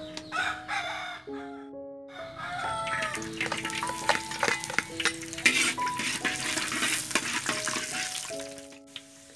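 Sliced shallots dropped into hot oil in a large wok, sizzling and crackling from about three seconds in, then stirred with a spatula. A rooster crows near the start, over a steady background melody.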